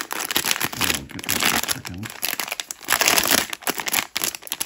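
Plastic packaging crinkling on and off as it is handled and opened, with a few short pauses.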